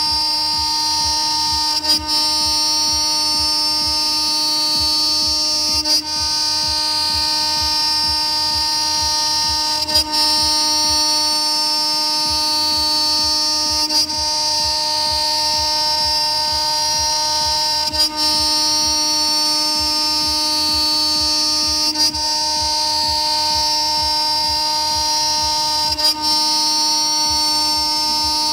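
A CNC router's 2.2 kW, 24000 rpm electric spindle milling a pocket in thick aluminum plate with a small end mill: a loud, steady whine of several tones over a fast low pulsing. A brief break comes about every four seconds.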